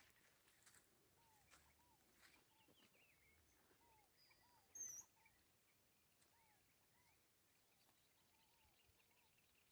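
Faint birdsong in the caatinga scrub: a bird repeats short, curved notes about once or twice a second, with other small chirps higher up. A single brief, louder, high whistle comes about halfway through.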